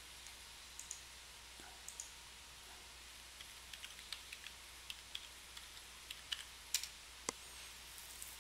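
Faint, scattered clicks of a computer keyboard as a password is typed: a quick run of keystrokes a little past halfway, then a few louder clicks near the end.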